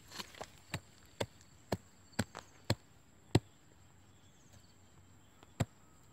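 A hoe-like digging tool striking dry soil: a run of about nine sharp blows, roughly two a second, the loudest near the middle, then a pause of about two seconds and one more blow near the end.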